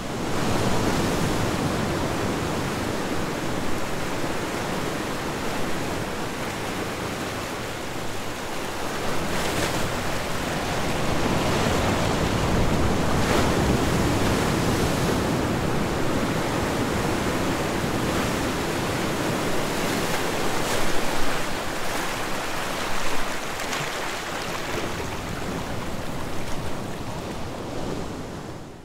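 Steady rushing noise, spread evenly from low to high, that slowly swells and eases over several seconds with no tune or voice, and falls away at the very end.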